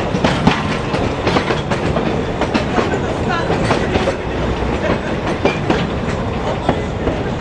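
Narrow-gauge passenger train rolling along, heard from an open-sided car: a steady rumble of the running gear with irregular clicks and knocks of the wheels over the track.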